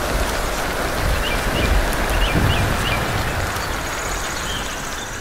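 Storm sound effect: steady heavy rain with a low rumbling underneath, easing slightly near the end. A few short bird chirps come through about one to two seconds in.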